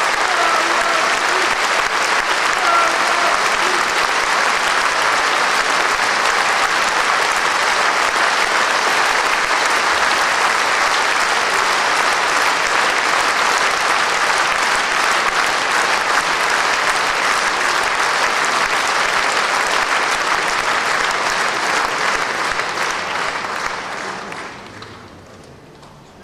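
A concert-hall audience applauding steadily. The applause dies away over the last few seconds.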